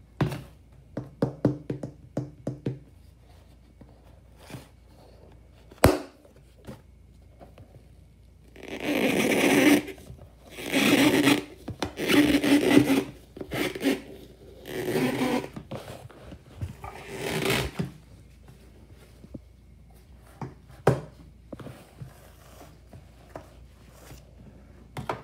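A wipe is drawn out of a plastic wipes canister's lid and rubbed, making several scraping, rubbing strokes about a second each through the middle of the stretch. Earlier come light handling clicks and one sharp knock.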